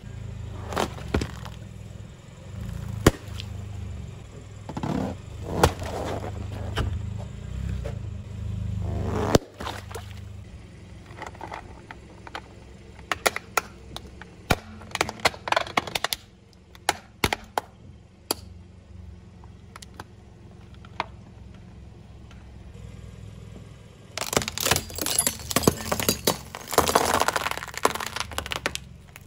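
A car tyre rolling slowly over objects: balloons bursting with sharp pops over a low rumble, then a hard plastic mask cracking and snapping under the wheel, then the glass tubes of a spiral fluorescent bulb shattering and crunching near the end.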